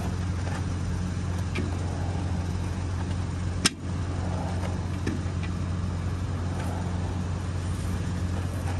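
A steel pry bar levering a seized old tractor engine round by its flywheel: faint metal scrapes and ticks, and one sharp metal clank about three and a half seconds in. Under it runs a steady low mechanical hum.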